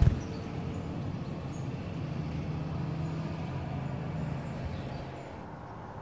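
A sharp click at the start, then a steady low mechanical rumble, like distant traffic, easing slightly near the end.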